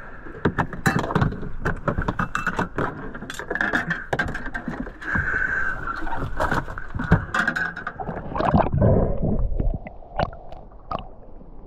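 Gear knocking and clattering in a small aluminium boat, many sharp clicks and knocks over water slapping at the hull. A louder rush of water comes near the end.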